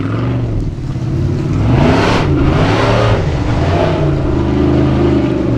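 Unlimited-class Formula Offroad buggy's engine revving hard under full load on a steep hill climb, the revs rising and falling over and over, with a loud surge about two seconds in.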